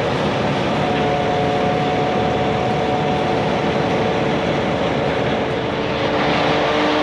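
Concrete pump truck's engine and hydraulics running steadily, a constant drone with a steady whine over it; a second, lower whine joins near the end.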